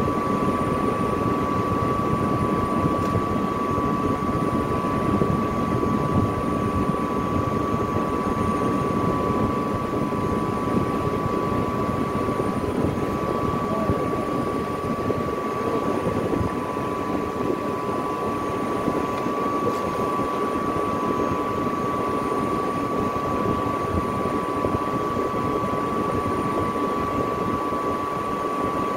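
Steady running noise from industrial drive equipment: a fan-like rush with a constant high whine through it, unchanging throughout.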